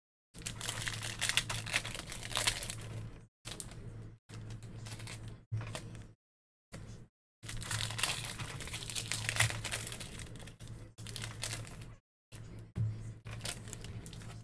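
Foil trading-card pack wrappers being torn open and crinkled by hand, in spells of crackling over a low electrical hum, with the sound cutting to dead silence several times in between.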